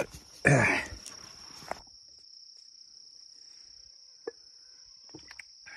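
A cricket trilling steadily on one high, unbroken note. A short vocal sound comes in the first second, and there is a single faint click about four seconds in.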